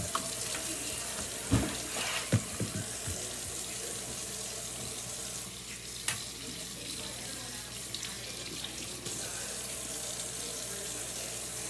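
Kitchen tap running steadily into a sink while cubed steak is rinsed under it, with a few light knocks and clatters in the first few seconds.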